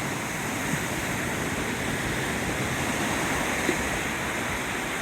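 Steady wash of small ocean waves breaking on a beach.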